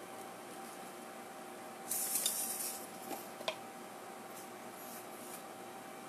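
A plastic batter mixer and dispenser being pulled apart by hand, with a brief hiss about two seconds in as its parts separate. A couple of light plastic clicks follow.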